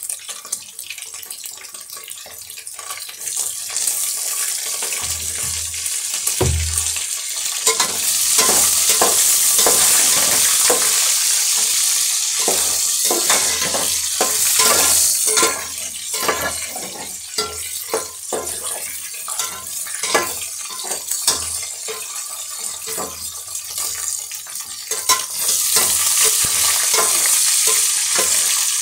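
Pork sizzling as it fries in a pan, with the repeated scrape and clack of a utensil stirring it. The sizzle grows louder about a third of the way in and again near the end.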